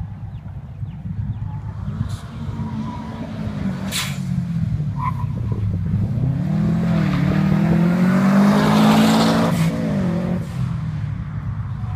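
Subaru Impreza WRX STI's turbocharged flat-four revving up and down as the car is driven hard through tight turns, with tyres squealing. The engine note climbs to its loudest just past the middle, then falls away near the end.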